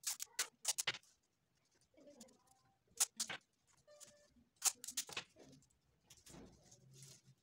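Paper and tape crackling and rustling as hands press decorations onto a paper kite: short, sharp crinkles in a few clusters, near the start, about three seconds in and about five seconds in.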